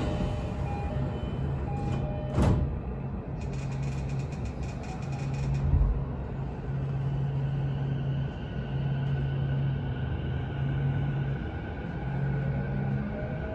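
Interior running noise of an electric commuter train at speed: a steady rumble of wheels on rail with a low hum that drops out now and then. There is a sharp, loud clatter about two and a half seconds in, and a rising whine near the end.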